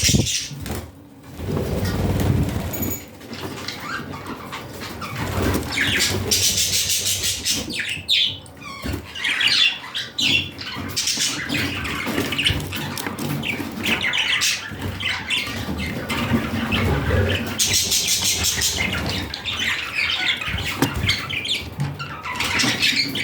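Gray budgerigar chattering in a long, busy run of quick chirps and warbles, denser in two stretches: the contented chatter of a happy budgie.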